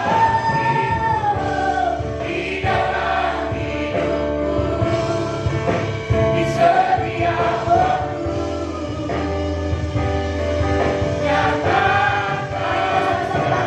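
Worship song in a church service: a group of voices singing together over instrumental accompaniment with a steady bass.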